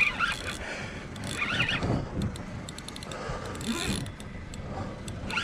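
A Penn spinning reel being cranked against a hooked fish on a bent rod, its gears clicking as the handle turns.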